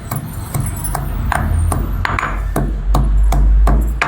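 Sitharathai (lesser galangal) rhizome being pounded to crush it for a kashayam: about eleven sharp strikes, two or three a second, each with a short ringing tail, with a low thud under the later ones.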